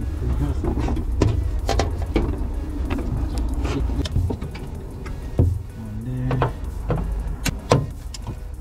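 Plastic pop clips and the wiring harness being worked loose from a car's trunk floor: scattered sharp clicks and knocks over a steady low rumble.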